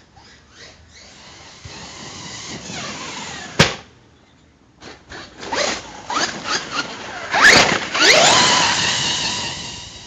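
Hobao Hyper ST Pro brushless RC truck's electric motor whining through several bursts of throttle, its pitch rising with each acceleration. A sharp click comes about three and a half seconds in. The loudest bursts come near the end, then the whine fades away as the truck drives off.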